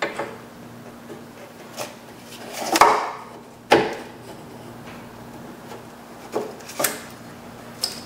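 Irregular clicks and knocks of parts and hands handled against a car door's bare inner sheet-metal shell, about seven in all. There is a short scraping rustle just before three seconds in, and the sharpest knock comes a little under four seconds in.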